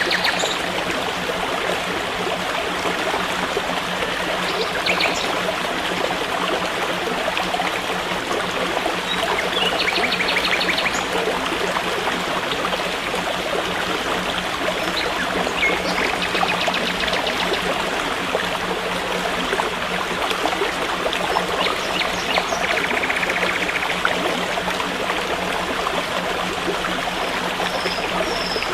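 A stream running steadily with a continuous water rush, broken by short rapid trills about three times.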